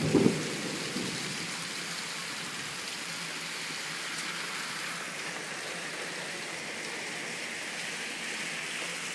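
Hard rain mixed with a little sleet falling steadily, an even hiss.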